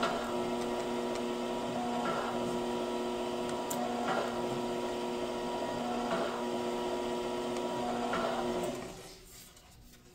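Electric motor of a metal-shaping machine running with a steady hum and a swell about every two seconds, then stopping about nine seconds in.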